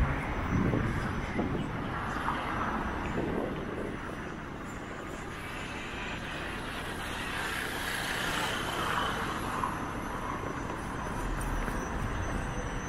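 City street traffic noise: a steady wash of cars, scooters and buses passing on the road.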